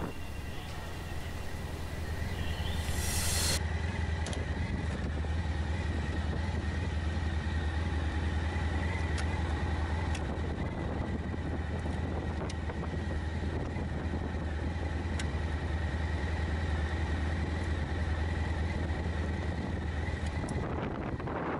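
Honda ST1100 motorcycle engine idling steadily, with a few sharp clicks as the pannier and its mounting latch are handled.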